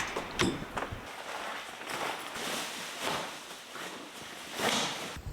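A few footsteps, then a steady hiss of falling rain, with a brief swish near the end.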